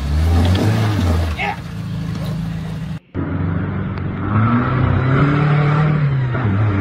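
4x4 engines revving off-road in two clips. First a small 4x4 works on a rock ledge under voices, then after an abrupt cut about three seconds in, a pickup's engine revs up and falls back as it drives through deep mud.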